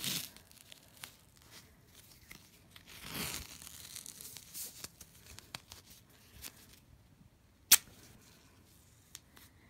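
Adhesive tape being pulled off the roll and wrapped around a thumb: rustling, tearing pulls of tape with small crackles and clicks, and one sharp click about three-quarters of the way in.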